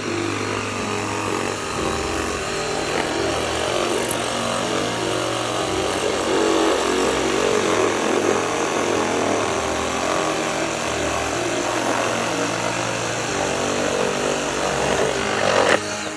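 Electric saw running and cutting through wooden deck boards, a continuous motor-and-cutting noise that stops abruptly near the end.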